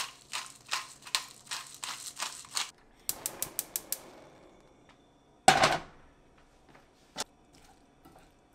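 A hand-twisted spice grinder works over the broccolini in quick strokes, about three a second, for nearly three seconds. Then a gas stove's igniter clicks rapidly about six times and the burner catches with a soft rush. About five and a half seconds in a frying pan is set down on the burner grate with a loud clank, and a lighter knock follows.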